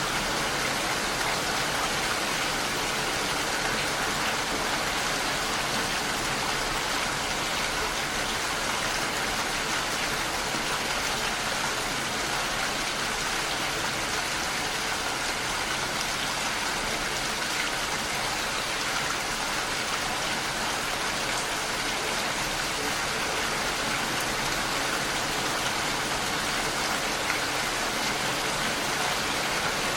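Heavy rain falling steadily against a window pane, a dense even hiss with no breaks.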